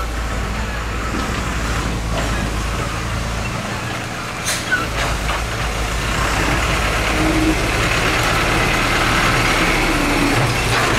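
Heavy diesel machinery running steadily, with a low engine hum. A couple of knocks come about four and a half seconds in, and a broad rushing noise grows louder from about six seconds in.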